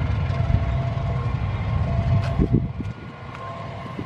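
Train passing at a distance, a low rumble that falls away sharply about three seconds in as the last cars move off, with wind buffeting the microphone.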